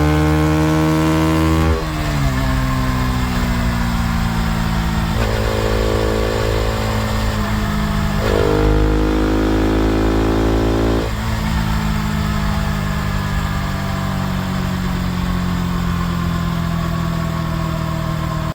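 KTM RC 200's single-cylinder engine running, held at higher revs at first and dropping about two seconds in. It revs up briefly around the middle, falls back, and then winds slowly down.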